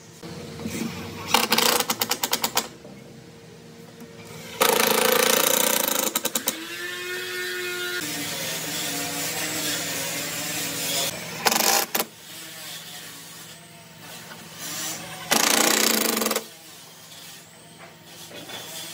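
Cordless drill driving screws into a hardwood frame in several short bursts, some of them breaking into rapid clicking.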